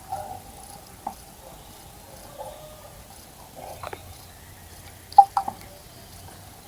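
Birds bathing in a garden bird bath, splashing in short bursts with gaps between; the loudest is a quick double splash about five seconds in.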